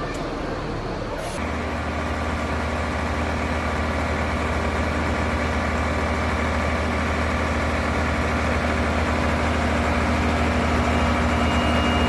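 Aerial ladder fire truck's engine running at a steady speed, a constant hum that sets in about a second in and grows slightly louder.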